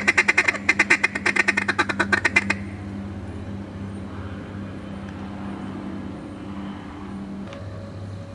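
Rapid string of duck quacks, about nine a second, which stops about two and a half seconds in, over a steady low hum.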